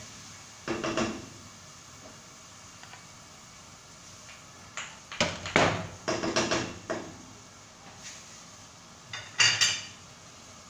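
Dishes knocking and scraping as they are handled, in three groups of short clatters: one about a second in, a longer cluster around five to seven seconds, and a loud one near the end.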